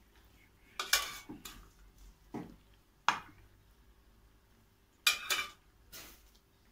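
Metal ladle clinking against a stainless steel pot as liquid is scooped out and spooned over rusks in a glass dish: several sharp separate clinks, with a quick pair about five seconds in.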